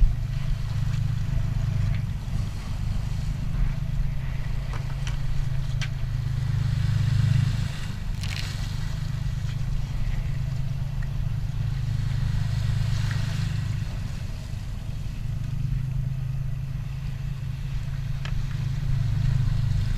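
A boat engine running with a steady low drone, and a couple of brief swishes of water about eight and thirteen seconds in.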